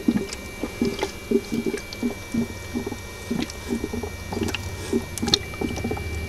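HHO gas from a baking-soda electrolysis dry cell bubbling out of a tube into an inverted bottle full of water: a quick, irregular run of gurgling blips, several a second, as the gas displaces the water.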